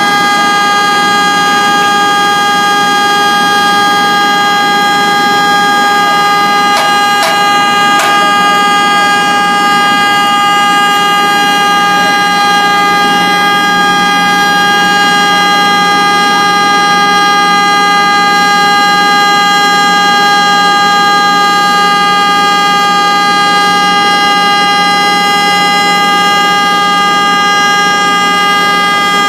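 Vehicle horn sounding continuously on one steady, unwavering note, loud and without a break, over a faint background of street noise.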